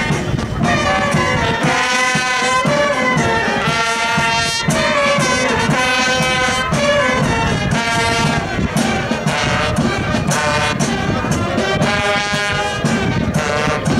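Brass band playing music: held brass notes over a regular drumbeat.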